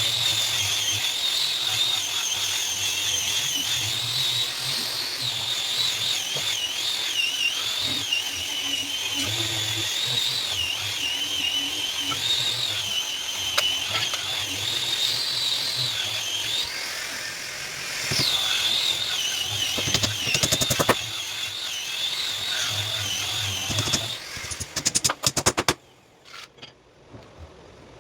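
Woodworking power tool running with a high, wavering whine. Near the end the whine stops and there are quick runs of sharp clicks and a few separate clicks.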